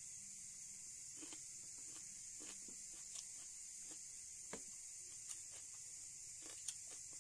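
Quiet eating sounds from a meal of rice eaten by hand: scattered soft clicks and mouth smacks over a steady faint hiss.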